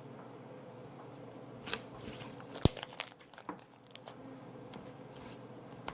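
Slime containers being handled: a few scattered clicks and crinkles, with one sharp click about two and a half seconds in.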